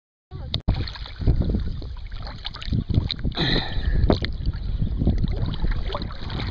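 Wind buffeting the microphone, with river water lapping and splashing close by; it cuts in suddenly about a third of a second in and runs on in uneven gusts.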